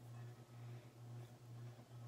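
Near silence: quiet room tone with a steady low hum.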